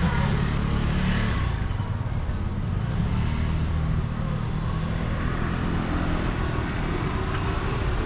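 City street traffic: cars and motor scooters running along the road in a steady rumble. Music from a shopfront fades out about a second in.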